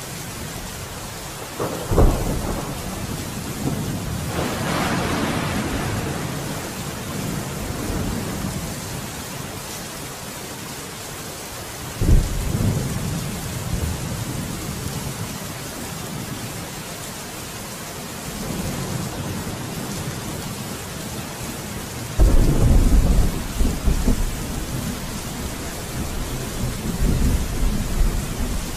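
Steady rain with rolling thunder: low rumbles swell about 2 seconds in and again about 12 seconds in, and a longer, louder rumble comes around 22 seconds in.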